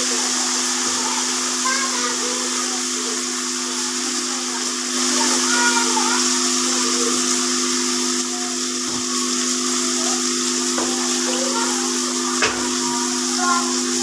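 Onions frying in oil in an aluminium pot on a gas stove: a steady hiss, with a steady hum underneath and a single click near the end.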